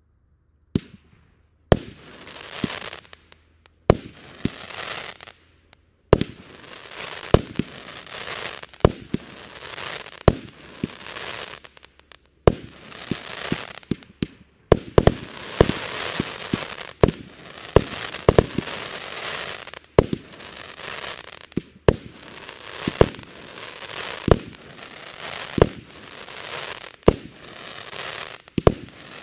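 A 31-shot, 25 mm fireworks cake (Lesli Showbrick Silver Crackle 31) firing shot after shot, with a sharp launch bang about once a second. Each bang is followed by a dense crackling from the silver palm and crackling effects.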